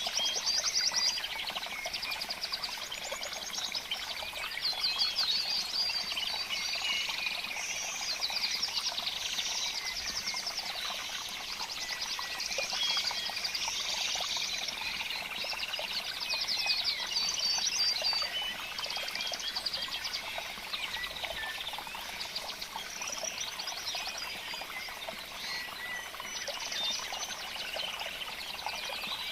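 Several small birds chirping and trilling at once, a busy continuous chorus of high, fast trills and short calls.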